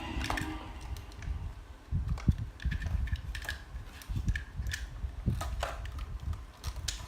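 Scattered light clicks and taps of plastic toy parts being handled and fitted together, over low, irregular handling thumps.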